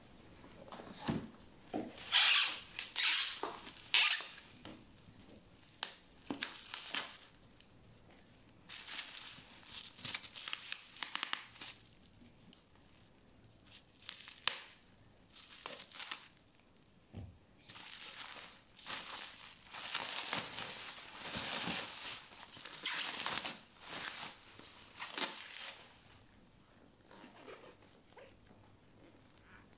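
Plastic bubble wrap crinkling and tearing as it is handled and cut open with scissors, in irregular bursts with short quieter gaps.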